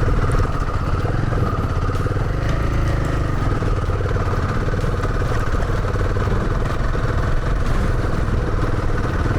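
Royal Enfield Himalayan 450's single-cylinder engine running steadily while the motorcycle rides slowly over a rocky dirt track, with a few faint clicks.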